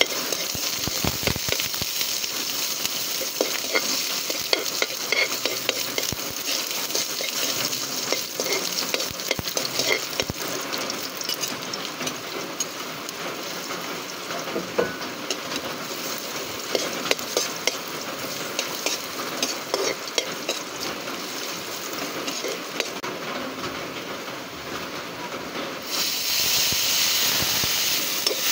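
Onion and garlic frying and sizzling in a metal wok, with a metal spoon scraping and clicking against the pan as it stirs. Near the end the sizzle turns suddenly louder and hissier as the wild mushrooms go into the hot pan.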